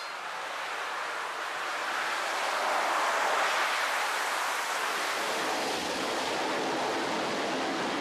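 AV-8B Harrier II's Pegasus turbofan at full power during a short takeoff run: a broad jet roar that swells to its loudest about three seconds in, then holds steady.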